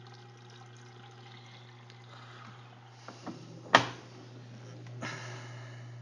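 LG Prime front-load washing machine in its final rinse: water trickling over a steady low hum. A single sharp click, the loudest sound, comes a little past halfway through.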